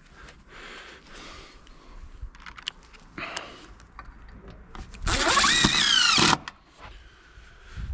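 Cordless drill-driver driving a screw to fix a metal gutter hanger, one whine of just over a second about five seconds in, its pitch rising then dipping. Before it, scattered light clicks and knocks of handling.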